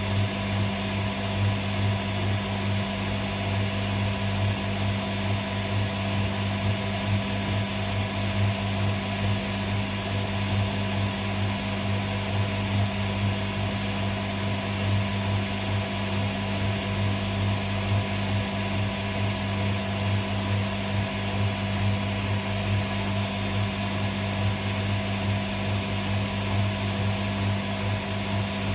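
Hotpoint Aquarius WMA37 washing machine running with a steady low hum that keeps the same pitch throughout.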